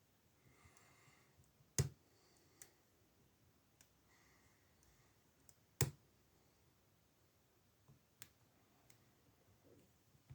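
Lock picking tools working in a brass padlock's keyway: light metal scraping and scattered ticks, with two sharp clicks about four seconds apart.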